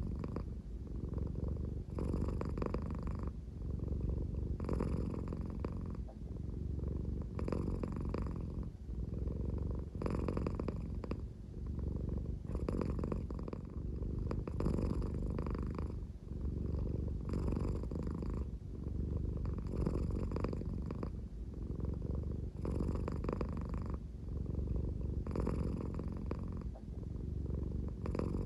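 American Shorthair cat purring at a slow pace, a low, snore-like rumble. A breathier rasp swells in it about every two and a half seconds.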